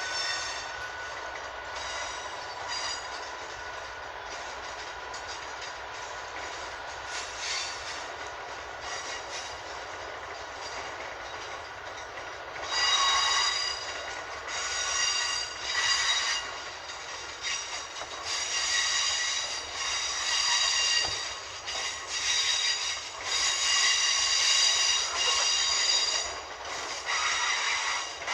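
Freight train of tank wagons hauled by a Class 66 diesel locomotive running round a tight curve. The wheels squeal high-pitched and steady at first, then in repeated loud bursts from about halfway on.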